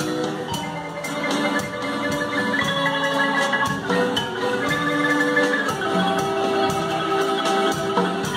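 Guatemalan marimba ensemble playing a melody on two marimbas, several players striking the wooden bars with mallets in quick runs of notes, with a drum kit keeping a steady beat.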